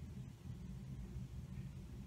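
Faint steady low rumble under a light hiss: background room noise with no distinct events.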